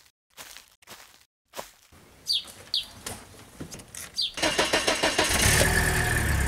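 A bird chirps a few times, then a BMW E36 3 Series car engine is cranked with quick regular pulses and catches near the end, settling into a steady low idle.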